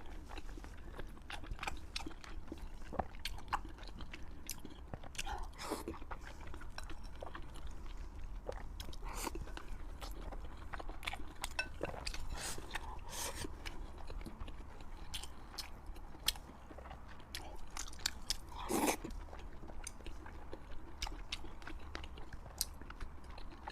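Close-miked chewing and biting of four-layer fried pork: a steady run of short wet clicks and smacks, with a louder, fuller bite about nineteen seconds in.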